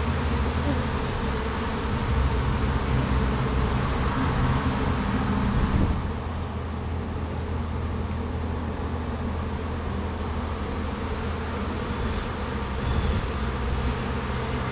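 A mass of Asian honeybees (Apis cerana) buzzing in a steady, continuous hum around an opened hive as the comb frames are lifted out.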